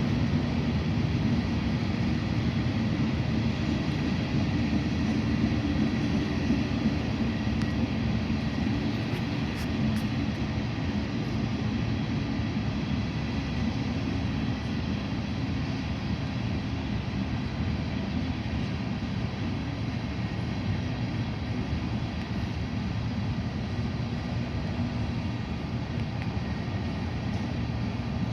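Heavy diesel machinery running, a steady low rumble that slowly eases off.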